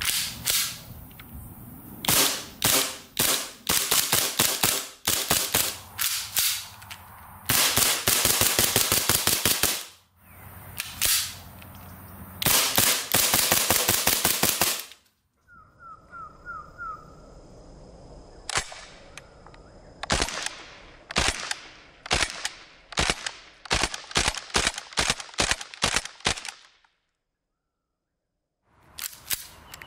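G&G GPM1911 CP gas blowback airsoft pistol firing in strings of quick shots, each shot a sharp crack from the cycling slide, with short pauses between strings and a silence of about two seconds near the end.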